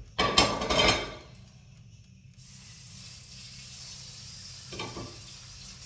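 Kebab wrap frying in an oiled pan on high heat: a steady sizzle that rises about two seconds in. Near the start comes a brief clatter as a plate is set on top to press the wrap, and a short knock comes near the end.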